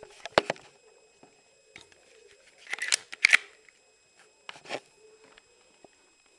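A few sharp plastic clicks and clacks from a spring airsoft pistol and its homemade dart being handled: one about half a second in, a cluster about three seconds in, and another shortly after.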